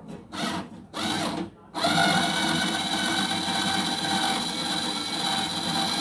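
Black & Decker power screwdriver backing out the screws that hold a microwave oven's magnetron. Its motor runs in two brief spurts, then runs steadily for about four seconds with a whine.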